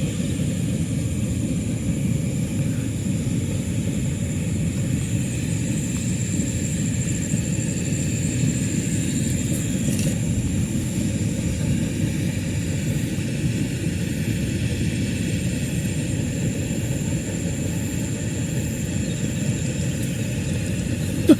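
Steady low rumble without pitch or rhythm, with a thin, steady high-pitched whine above it.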